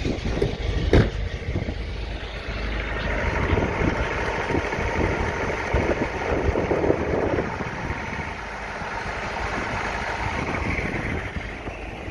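1991 Honda Prelude Si's four-cylinder engine idling with an uneven, pulsing rhythm and a sharp knock about a second in. This is a suspected misfire that new spark plugs may not have cured; the owner thinks it could be a plug wire but is unsure whether it is still misfiring.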